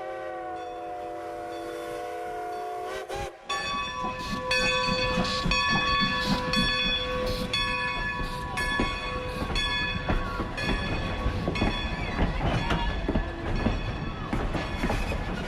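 A train whistle sounds one steady chord for about three seconds, then cuts off. After that the train runs, with repeated clicking and steady ringing tones that stop and start.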